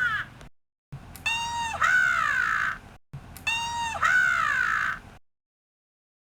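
A short sound-effect clip played twice in a row: a high-pitched call with a level note, then a quick rising-and-falling glide.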